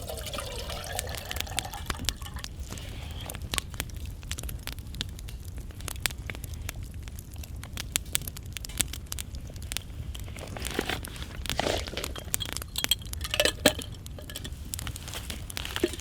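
Wood fire crackling with a dense run of small irregular pops, over a low steady rumble. A few clinks ring out around three-quarters of the way through.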